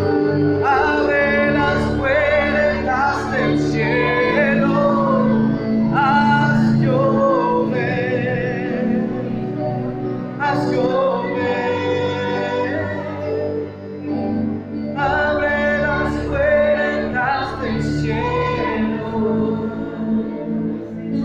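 Congregational worship song: a singer's melody over sustained keyboard-style accompaniment, a Spanish-language praise song.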